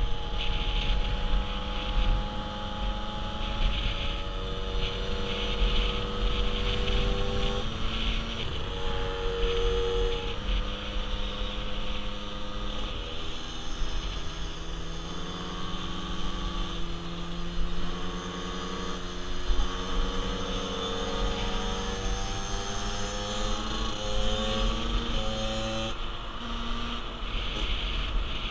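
50cc motorcycle engine running under way, its pitch climbing and then dropping back several times as it changes up through the gears, with wind on the microphone.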